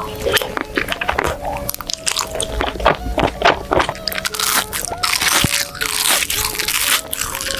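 Crunchy food being bitten and chewed close to the microphone: many sharp crackling crunches, densest and loudest over the last three seconds. Background music plays underneath.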